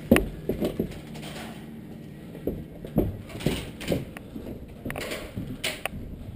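Irregular thuds and knocks, roughly one every half second, like the footsteps and gear of an airsoft player moving on foot.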